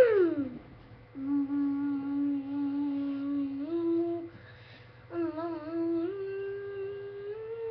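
A person's voice humming long held notes. It opens with a loud falling swoop, then holds a low steady note that steps up once. After a short break a wavering note climbs higher and drops back near the end.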